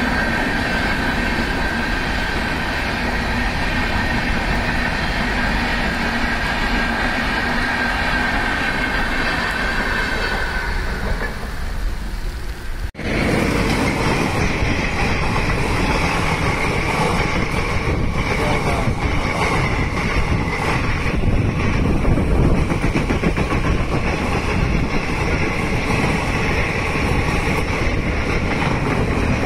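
Express passenger trains passing at high speed close by: a steady rush of wheels on the rails with a high ringing tone, then, after a sudden cut about 13 seconds in, a diesel locomotive and its coaches rushing past with a clatter of wheels over the rail joints.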